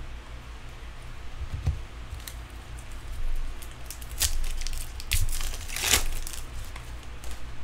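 A foil baseball card pack being torn open and crinkled by hand, with the cards rustling as they slide out. It comes as a string of short crackles, the loudest about three quarters of the way through.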